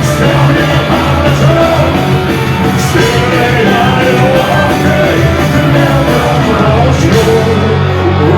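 Punk rock song played loud by a band with a sung, shouted vocal, going through its final chorus.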